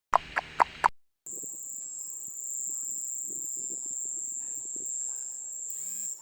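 A cricket-sound ringtone playing on a Momo Droid 750 Android device: a steady high shrill tone with short chirps repeating about once a second over a faint crackle, and a few falling chirps near the end. It is preceded by the end of another tone with a few sharp ticks in the first second.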